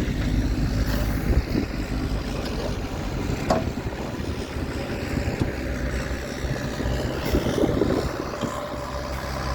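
JCB 3DX backhoe loader's diesel engine running steadily while it works, with a short knock about three and a half seconds in.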